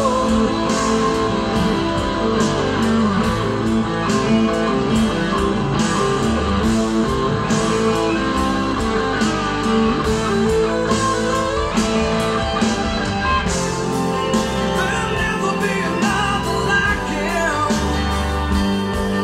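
Rock music played through Fyne Audio F500 loudspeakers and picked up by room microphones: an instrumental stretch of guitar over bass and drums, with bending guitar notes later on.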